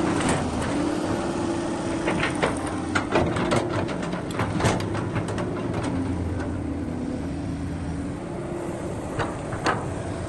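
Heavy machine engine, most likely an excavator's, running steadily with a wavering hum. A cluster of sharp knocks and clicks comes about two to five seconds in, and a few more near the end.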